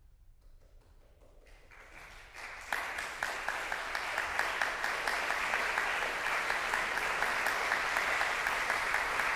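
Audience applause at the end of a piano recital piece. It starts as a few scattered claps and swells into full, steady applause after about two and a half seconds.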